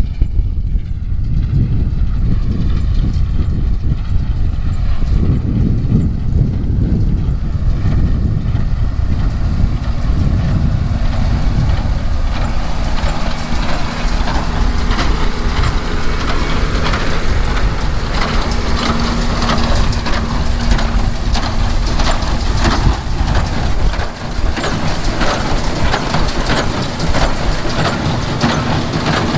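Tractor engine running steadily with a baler working, a continuous mechanical clatter that grows denser and louder about ten seconds in.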